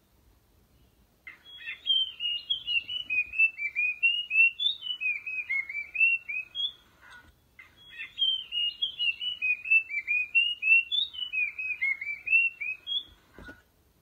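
Song of a babbler known in Thai as nok krachap din ok lai (nok krong din): a quick, unbroken run of clear, slurred whistled notes lasting about six seconds, then after a brief pause the same song again.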